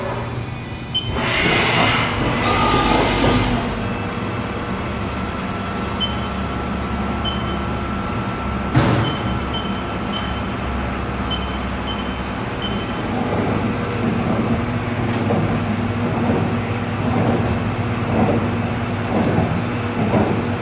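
Haas VF-3YT/50 CNC vertical machining center running, a steady mechanical hum with faint steady tones as the spindle head moves. About a second in, a hiss of air lasts for about two seconds; a sharp clunk comes near the middle, with short high chirps repeating around it, and uneven rattling pulses follow in the second half.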